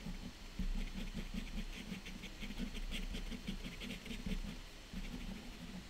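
Ink pen scratching across paper in a run of quick, short hatching strokes, about six or seven a second, easing off near the end.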